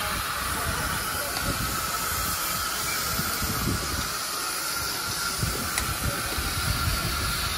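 Steady hiss of escaping steam from a traction engine in steam, with an uneven low rumble underneath.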